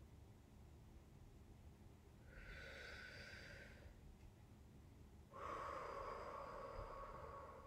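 A woman taking slow, deep breaths for a breathing exercise: a soft airy in-breath about two seconds in, then a longer, slightly louder out-breath from just past five seconds.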